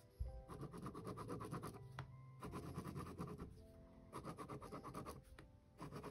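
Pen scratching on sketchbook paper in quick, short strokes, in three spells with brief pauses between them, after a light knock as the pen touches down.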